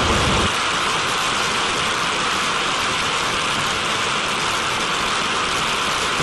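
A TMS-65 smoke machine's turbojet running steadily, heard as an even rushing hiss with no distinct tone. Its deep low rumble drops away about half a second in.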